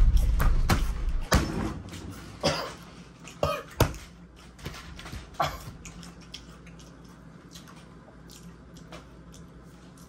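Men coughing and clearing their throats, several short coughs scattered over the first six seconds, as the heat of the super-hot chili chip they have just eaten hits. A low rumble fades out in the first second or so.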